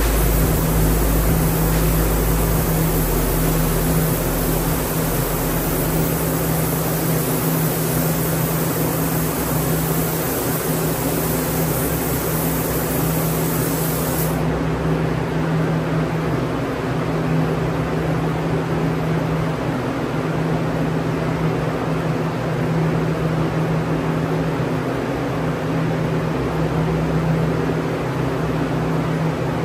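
Sagola 4600 spray gun with a DVR base air cap hissing steadily as it sprays sealer at about 28 PSI, full fan and full fluid, over a steady low hum. The hiss loses its highest part about halfway through.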